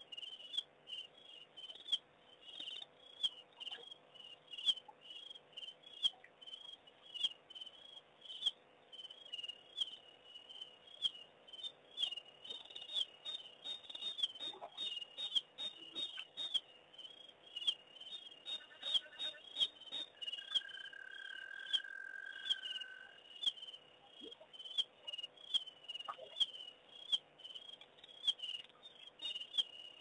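Night chorus of crickets trilling in quick, uneven pulses, with frequent sharp clicks throughout. A separate steady tone holds for about two and a half seconds past the middle.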